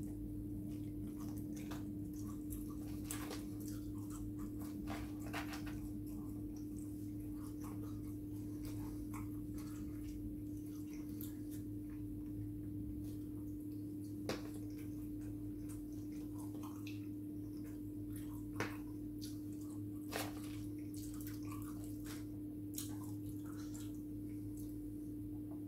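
Close-miked eating of fried chicken: wet mouth and chewing noises with scattered small clicks and smacks. All of it sits over a steady low hum, which is the loudest thing throughout.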